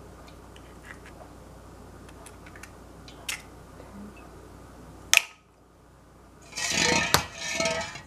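Light clicks and taps of eggshell halves being handled while eggs are separated by hand, with a sharp click about five seconds in. Near the end comes a louder stretch of clattering and rustling lasting about a second and a half.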